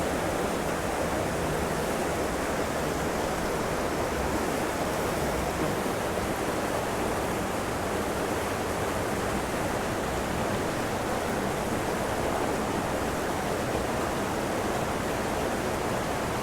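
Steady, even rush of a canyon creek's running and falling water.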